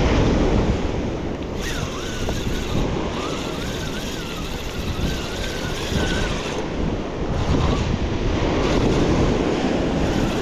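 Sea surf washing steadily, with wind buffeting the microphone.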